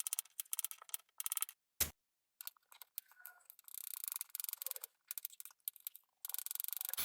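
Raw vegetable preparation in the kitchen: quick runs of crisp, rasping cutting and scraping strokes, with one sharp click a little under two seconds in.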